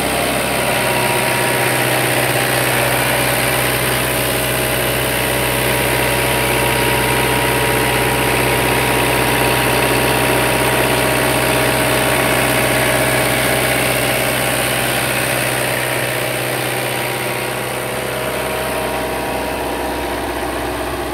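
Caterpillar 306 mini excavator's diesel engine idling steadily, heard close up through its open engine cover; slightly fainter near the end.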